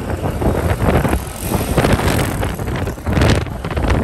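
Wind buffeting the microphone on a moving motorbike, over the rumble of the engine and road. The wind noise gusts up and down, loudest a little after three seconds in.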